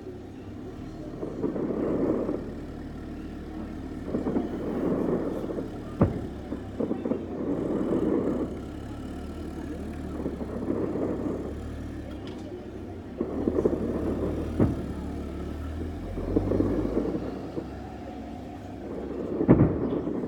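Fireworks bursting in the distance: a run of rolling booms every two to three seconds, with a few sharp cracks among them.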